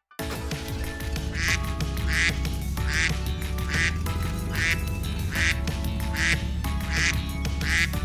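A farm animal calling repeatedly over steady background music: about ten short calls, starting about a second and a half in.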